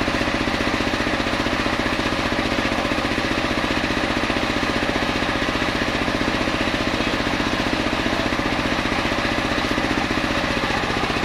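Small engine driving a home-built circular saw bench, running steadily with a fast, even pulse while the blade spins freely between cuts.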